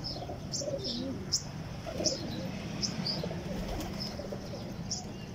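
Birds in a pigeon loft: short high chirps recurring every half second to a second, over low pigeon cooing.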